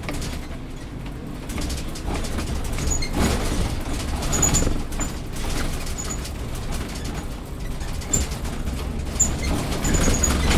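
City bus driving in traffic, heard from inside the driver's cab: a steady low engine and road rumble that swells at times, with scattered brief high ticks and squeaks.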